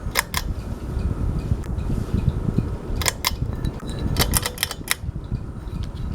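Hunter Coastal Breeze Plus ceiling fan running, its moving air making a steady low rumble, with sharp clicks: a pair at the start, another pair about three seconds in, and a quick run of four or five a second later.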